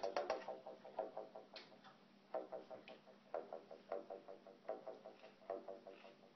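Korg Monotribe analog groovebox playing quietly: a rapid train of short, pitched ticking notes. It fades over the first couple of seconds, then returns in short bursts separated by brief pauses as the knobs and step buttons are worked.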